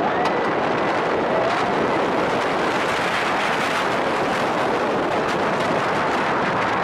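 Steady rush of wind on the microphone mixed with the running noise of a B&M hypercoaster train on its steel track, heard from the front seat at speed.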